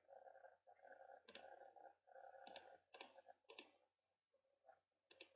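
Faint computer mouse clicks, about five spread over a few seconds, with a faint murmur under the first half.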